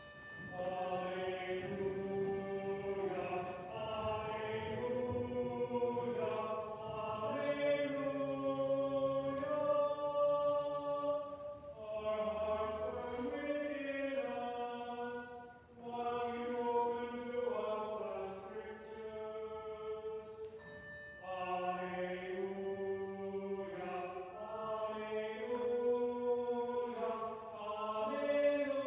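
A solo voice singing a slow liturgical chant in a reverberant church. It holds and steps between notes, in phrases broken by short breaths.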